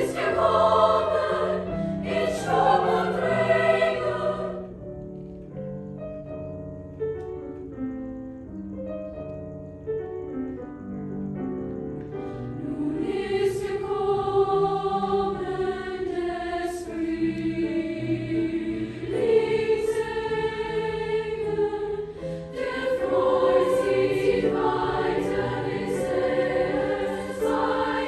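Soprano-alto choir singing in German with piano accompaniment. The voices drop out about five seconds in, leaving the piano alone for several seconds, then come back in near the middle and sing on.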